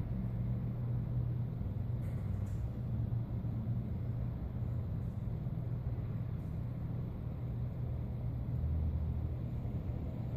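Steady low rumble with a faint hum, unchanging throughout.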